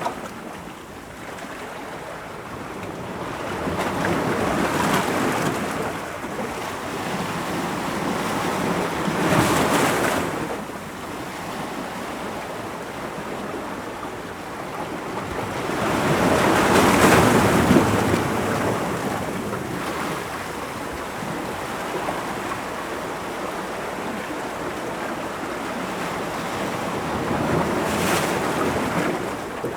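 Ocean waves breaking against rocks: a continuous wash of surf that swells four times, loudest a little past halfway.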